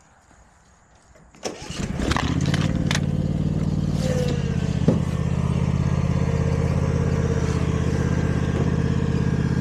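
An engine turns over and starts about a second and a half in, then settles into a steady idle.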